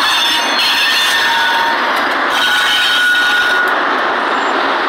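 Two GE B23-7 diesel-electric locomotives passing close by at low speed, their engines running under the steady rumble of wheels on rail. Thin high squeals from the wheels come and go over the top.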